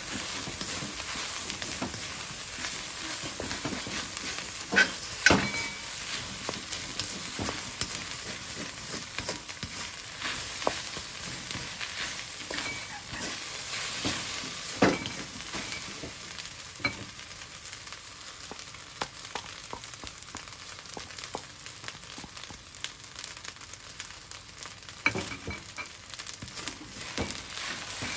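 Fried rice with cabbage sizzling in a wok as a wooden spatula stirs and scrapes through it, with a few sharp knocks of the spatula against the wok, two of them close together about five seconds in.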